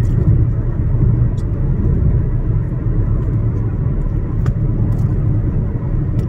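Steady low rumble of a car heard from inside the cabin, with a few faint clicks.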